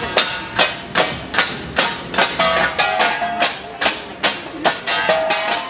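An ensemble of flat bronze gongs (gangsa) played in a steady interlocking beat. It gives about two to three sharp metallic strokes a second, each ringing briefly.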